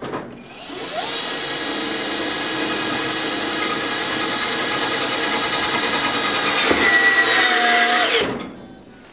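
12-volt cordless drill driving a mounting screw. It runs steadily for about seven seconds, gets louder near the end and then stops.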